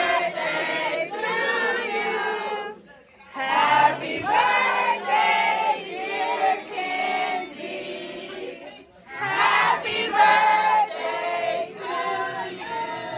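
Several voices singing together in sung phrases with held notes, pausing briefly about three seconds and nine seconds in.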